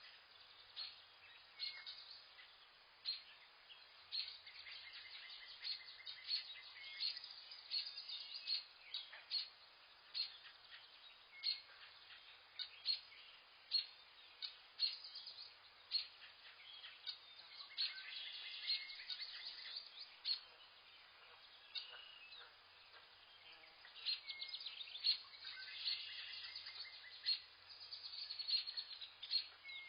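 Several small birds chirping and trilling in quick, high-pitched phrases over a faint hiss of forest ambience, busiest about two-thirds of the way through and again near the end.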